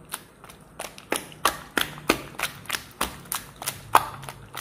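Milk cream (malai) being beaten by hand in a bowl: a utensil knocks against the bowl in a steady rhythm, about three strokes a second. This is the whipping stage of making desi ghee, working the cream to a smooth, creamy texture.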